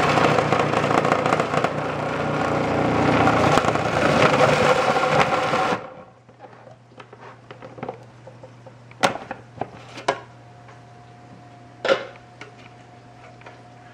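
Food processor motor running with its shredding disc grating Swiss cheese fed down the tube, a dense steady whir that stops abruptly about six seconds in. Then a few sharp plastic clicks as the lid is handled.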